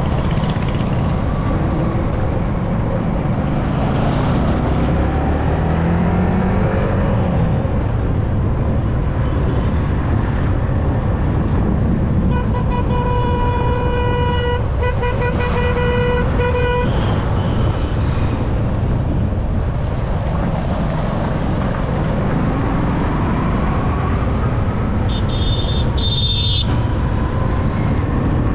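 Ride-along sound of a Yamaha R15M motorcycle: steady engine and wind rumble, its engine pitch rising and falling a few times early on. In the middle a vehicle horn honks in several blasts over about four seconds, and near the end a brief high-pitched tone sounds.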